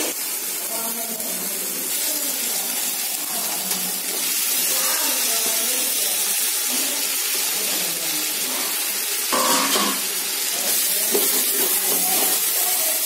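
Tomato masala sizzling steadily in hot oil in an aluminium pot. Near the end a metal skimmer stirs it through.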